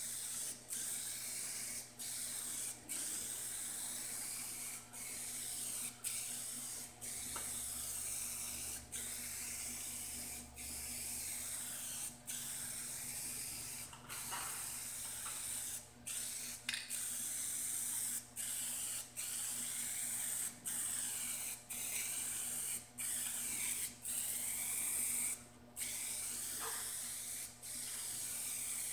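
Aerosol spray can hissing in repeated bursts of about one to two seconds, with brief breaks between them as the nozzle is released and pressed again. The restorer is being sprayed onto faded paint on sheet metal.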